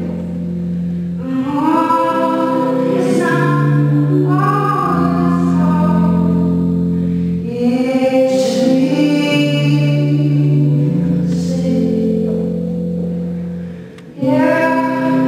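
A woman singing a slow song live, with held accompaniment chords that change every three seconds or so. The music drops away briefly near the end and then comes back in.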